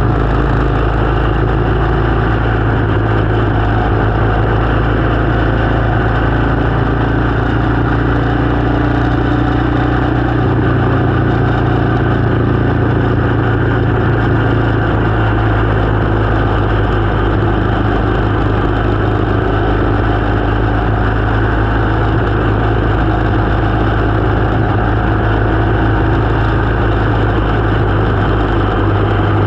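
Motorcycle engine running at a steady speed, a constant low hum that holds unchanged throughout.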